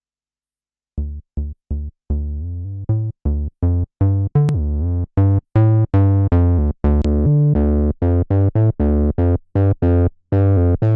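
Behringer TD-3 analog bass synthesizer playing a sequenced acid bassline of short, staccato notes, starting about a second in. The filter opens gradually, so the notes grow brighter and buzzier, with an occasional slide in pitch between notes.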